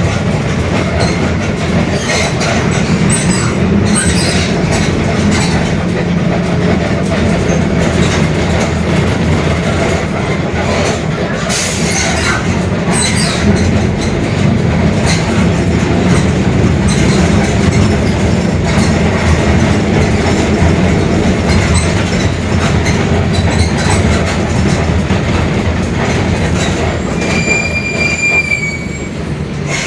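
Inside a Mercedes-Benz OF-1721 Bluetec 5 city bus under way: its diesel engine drones steadily, over a growling differential and constant body rattles and clicks. A brief high squeal comes near the end.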